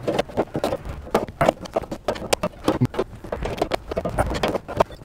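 Pliers gripping and working a bent edge of a steel lawn tractor mower deck: an irregular run of sharp metal clicks and knocks, several a second, with some scraping.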